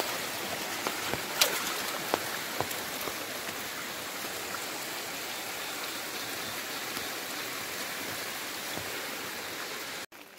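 Steady rain, an even hiss, with a few sharp taps in the first couple of seconds; it cuts off abruptly near the end.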